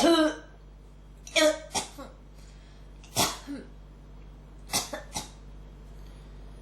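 A person coughing in a persistent fit: a loud cough at the start, then a pair, another pair and a quick run of three, each group a second or more apart.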